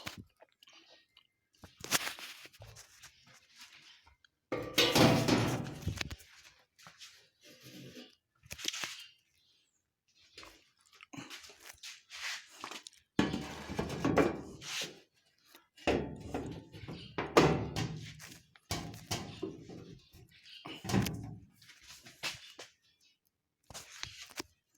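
Irregular thuds and knocks from things being handled, in separate bursts with short pauses between them. The loudest is a longer burst about five seconds in, and another comes around seventeen seconds.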